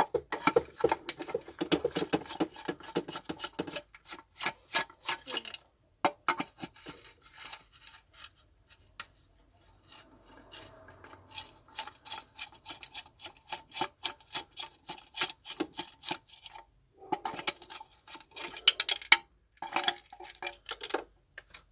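Hard plastic parts of a vacuum cleaner being handled and pried apart, clicking, rattling and scraping in dense runs of quick clicks with short pauses between.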